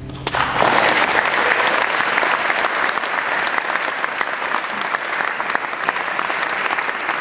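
Audience applause breaking out and holding steady, dense and loud, after a solo acoustic guitar piece. The guitar's last ringing chord fades under the first clapping about half a second in.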